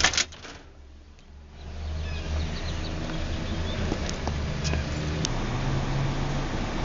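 A house door pulled shut with a sharp latch click at the very start. About a second and a half later a steady outdoor rumble sets in, with a few faint bird chirps.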